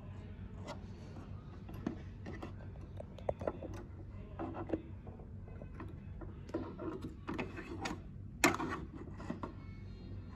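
Scattered light clicks and knocks of hands handling the needle area and presser foot of a Merrylock MK4075 coverlock machine, the loudest knock about eight and a half seconds in, over a steady low hum.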